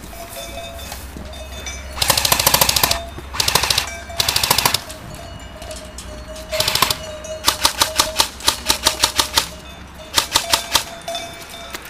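Airsoft electric rifles firing: three full-auto bursts of rapid clicking shots, each under a second, then a run of quick separate shots about six a second, and a few more shots near the end.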